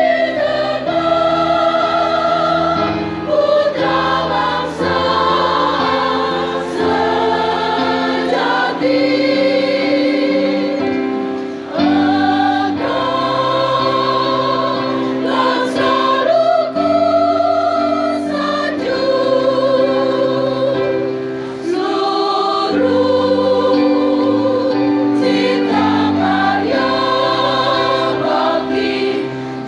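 Large choir, mostly women's voices, singing a regional anthem in long held chords, with short breaths between phrases about twelve and twenty-two seconds in.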